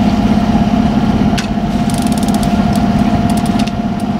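Sailing yacht's inboard diesel engine running steadily under way, a constant low hum with a steady higher tone over it. A few short runs of rapid ticking cut in over it.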